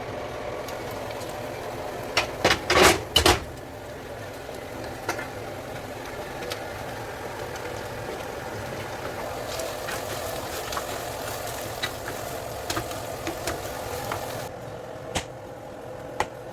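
A steady whirring hum with a quick cluster of loud clatters and knocks about two to three seconds in, and a few single sharp clicks later on.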